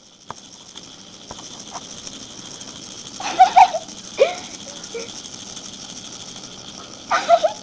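Small battery-powered walking toy bug running on a hard floor, its motor and legs making a steady high buzzing rattle. A few short pitched calls break in, loudest about three seconds in and again near the end.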